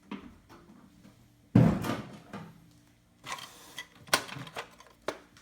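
Handling noises from a sewing machine's hard carrying case and accessories: a heavy thump about a second and a half in, then a clatter and a few sharp clicks.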